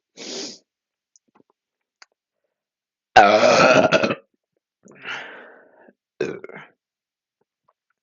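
A person's loud, pitched burp lasting about a second, brought up on purpose after chugging canned drinks, beginning about three seconds in; two shorter, quieter throat sounds follow.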